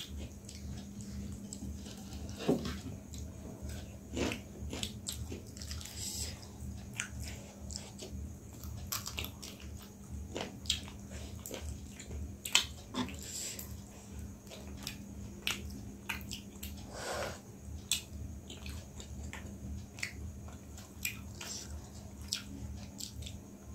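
Two people biting and chewing fried chicken wings, with irregular wet mouth clicks and smacks, over a faint steady hum.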